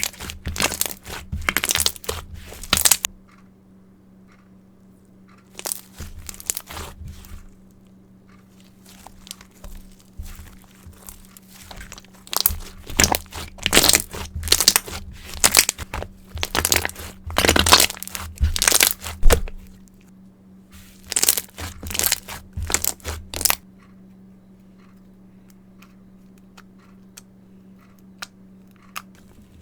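Mirror slime being squeezed, stretched and pressed by hand, giving bursts of dense clicking and crackling with short pauses between handlings; it goes quiet for the last several seconds. A steady low hum runs underneath.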